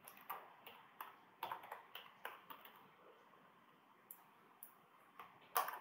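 Faint computer-keyboard typing: a run of separate keystrokes over the first couple of seconds, then a few more after a pause, with the loudest click near the end.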